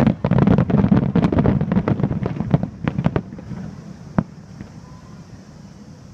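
Fireworks bursting overhead: a dense run of sharp cracks and bangs over a low rumble for about three seconds, thinning out, with one last crack about four seconds in.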